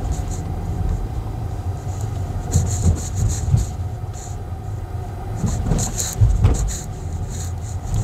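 Kia Seltos heard from inside the cabin while driving slowly, with a steady low rumble of engine and road noise. A few knocks and rattles come through, once about a third of the way in and again past the middle.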